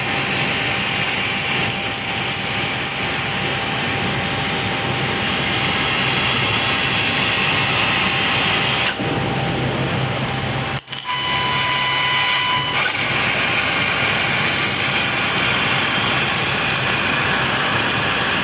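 Chinese laser cutting machine at work: a steady whirring and hissing from its motors and air, with a steady high tone sounding for about two seconds a little past the middle.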